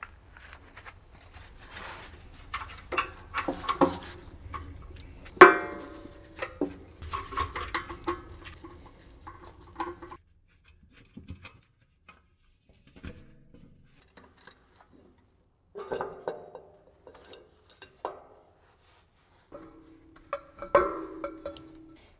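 Socket and extension bar working the bolts of a steel roller drum's manhole covers: scattered clicks and metallic clinks of tool, bolts and cover, with one loud ringing clank about five and a half seconds in and more ringing clinks near the end.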